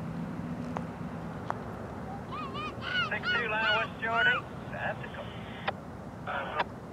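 Geese honking: a flurry of short overlapping honks from about two seconds in, and more starting near the end.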